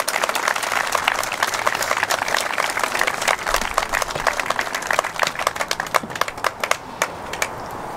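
Crowd applauding, many hands clapping irregularly, thinning out and dying away about seven seconds in.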